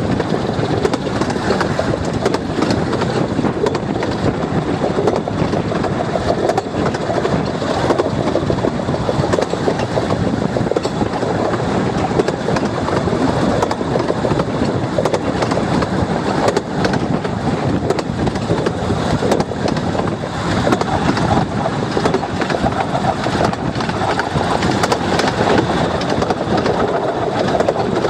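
15-inch gauge miniature railway train running along the line, heard from on board: a steady rumble and rattle of wheels on rails, with occasional faint clicks.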